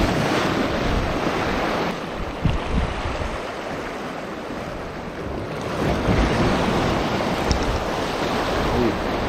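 Sea waves washing over shoreline rocks, with wind buffeting the microphone. The wash eases about two seconds in and builds again after about six seconds.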